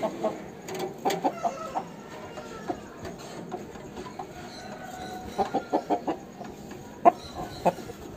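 Chickens clucking: a few short clucks about a second in, a quick run of five or so a little past the middle, and two louder, sharper clucks near the end.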